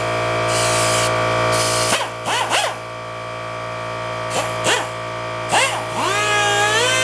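Inline pneumatic screwdriver running as it spins thumbscrews on a metal motherboard tray: a steady whine with air hiss at first, then short trigger bursts that rise and fall in pitch, before running up to a steady whine again near the end.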